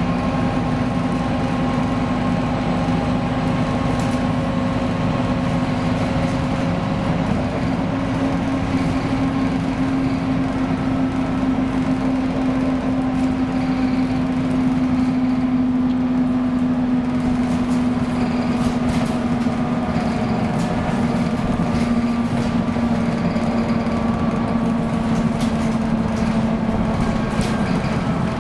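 Inside a 2017 Scania K310UB city bus cruising on the road: the rear-mounted five-cylinder diesel drones steadily under tyre and road noise. Its note rises slightly after several seconds, then eases down slowly through the second half. A few light clicks and rattles come from the cabin.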